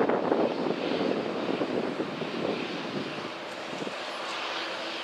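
Airbus A320-214's CFM56 jet engines on the landing rollout: a rushing, rough jet noise that eases off over the first couple of seconds as the airliner slows, with a faint steady hum coming in near the end.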